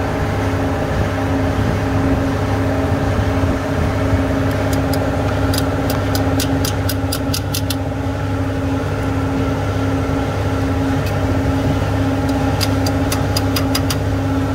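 A steady machine drone runs throughout. Over it come two runs of quick, evenly spaced clicks, one about a third of the way in and one near the end, from a ratchet wrench being worked on the engine.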